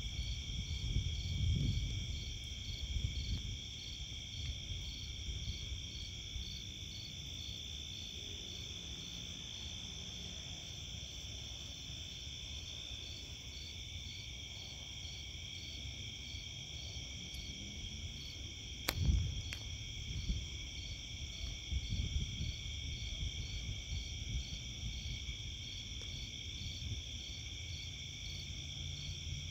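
Night chorus of crickets and other insects: steady high-pitched trilling in several layers, with one chirp pulsing about twice a second. Low uneven rumbles come and go, and a sharp click about nineteen seconds in, followed by a low rumble, is the loudest moment.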